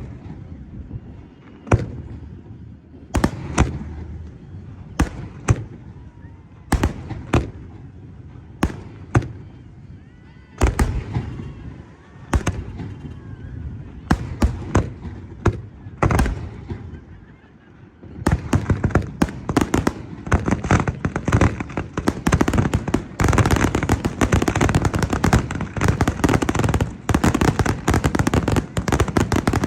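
A fireworks display heard from a distance. Single shell bursts go off about every second or two, each with a short rumbling echo. About 18 seconds in, this turns into a dense, rapid barrage of overlapping bangs and crackles.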